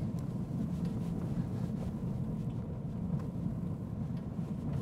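Tyres of a Rivian R1T electric pickup rolling slowly over loose gravel: a steady low rumble with a few faint ticks, and no engine sound, since the truck is electric.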